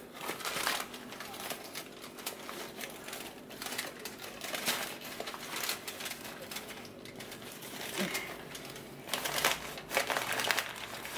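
Aluminium foil crinkling and a cotton tea towel and paper rustling as they are tucked and wrapped around a covered bowl by hand, in irregular bursts that grow busier near the end.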